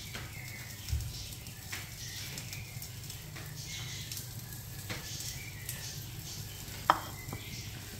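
Faint handling sounds of cooked chicken strips being laid by hand on a sauced flatbread on a wooden board: small soft taps and rustles over a steady low hum and hiss, with one sharp click about seven seconds in.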